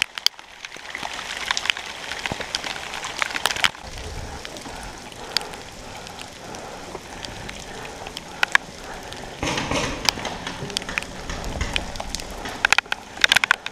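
Heavy rain falling in a steady hiss, broken by scattered sharp clicks and cracks, with a quick run of them near the end.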